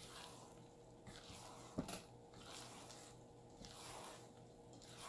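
Rubber spatula folding thick carrot cake batter with shredded carrots in a stainless steel bowl: faint wet squishing, with one sharper knock a little under two seconds in.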